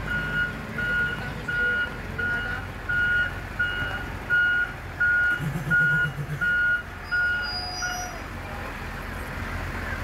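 Reversing alarm on a yellow construction machine beeping steadily at about two beeps a second and stopping about eight seconds in, over the machine's engine running.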